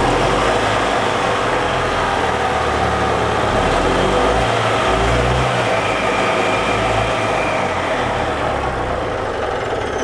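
2002 EZ-GO TXT golf cart's single-cylinder four-stroke gas engine running steadily, just after its intake valves were adjusted; it runs noticeably stronger.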